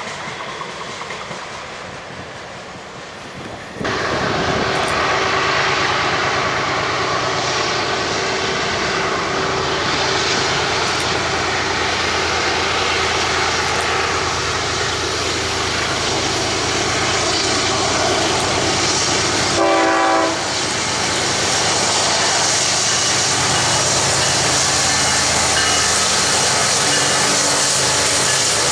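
Freight trains on the mainline: the fading rumble of a receding container train, then, about four seconds in, the sound jumps to a loud, steady approaching BNSF freight with several diesel locomotives running. The locomotive horn gives one short blast about two-thirds of the way through, and engine drone and wheel noise continue as the locomotives pass.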